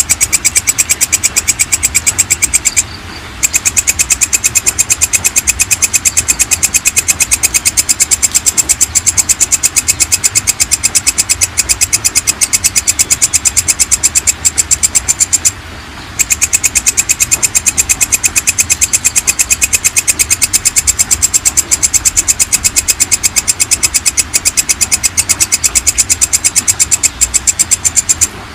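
Belalang kecek, a katydid, calling: a fast, even train of rasping chirps, high-pitched, that stops for a moment about three seconds in and again about halfway through.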